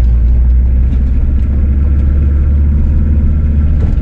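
A car driving, heard from inside the cabin: a steady low engine and road drone.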